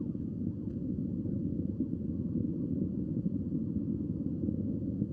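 Distant Soyuz-2.1a rocket in powered ascent, a steady deep rumble with nothing above the low range.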